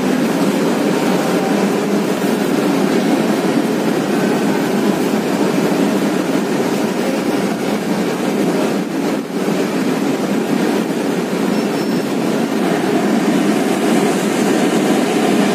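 Steady drone of a city bus heard from inside the passenger cabin while it is under way: engine and road noise with no distinct events, a little more hiss near the end.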